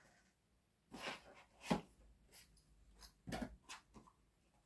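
A stamp set and its packaging being handled: a few short rustles and light knocks, the sharpest a little under two seconds in.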